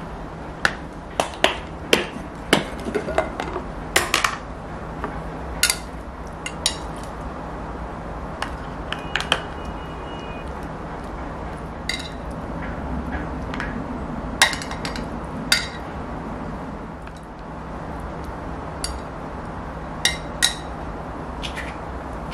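Chopsticks and tongs clicking and tapping against lunch-box trays and food containers as food is portioned in: sharp, irregular clicks, busiest in the first several seconds, then scattered. A steady low hum runs underneath.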